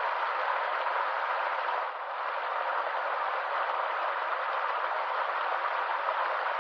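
Stream water running steadily, an even rushing hiss with a brief slight dip in level about two seconds in.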